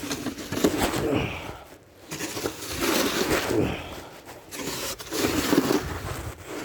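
Snow shovel scraping over pavement, pushing wet snow in three long strokes of one and a half to two seconds each, with short pauses between.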